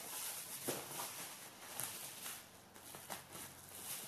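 Faint rustling of a parcel's packaging being handled and opened by hand, with a few light clicks and taps.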